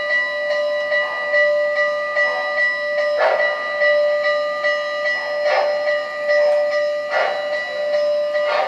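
O-gauge model train running, with a bell ringing steadily and a short rush of noise about every two seconds.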